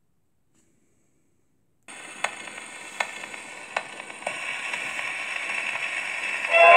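Surface noise of a 78 rpm shellac record played on a portable acoustic gramophone's soundbox: a steady hiss from the lead-in groove with several sharp clicks, roughly three-quarters of a second apart, after about two seconds of silence. Near the end the dance band's tango music starts.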